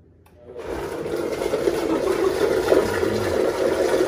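Countertop blender motor starting up about half a second in and running steadily, churning a thick oat-and-protein shake.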